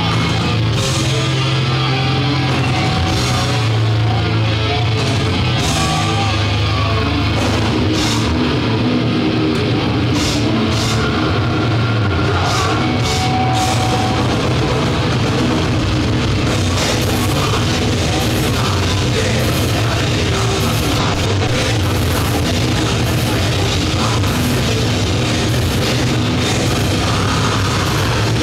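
Black metal band playing live: drums, distorted electric guitar and bass, held at a steady loud level throughout.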